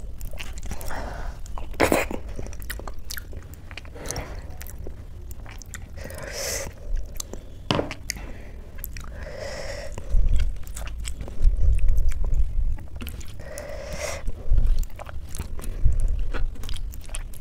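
Close-miked eating sounds: wet chewing and mouth smacks, with a hand squishing soft boiled rice and potato together on a steel plate. Several dull low thumps stand out in the second half.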